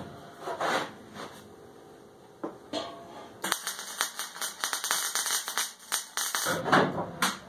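Electric arc welding on steel: a steady, fast crackle of the arc for about three seconds in the middle, with a few knocks of handling before and after it.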